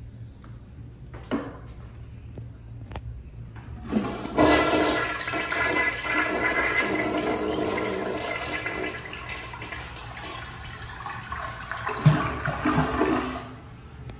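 1991 Crane Radcliffe tank toilet flushing. A couple of short clicks come first, then a loud rush of water starts about four seconds in and slowly eases off. A short louder spell near the end comes before it stops.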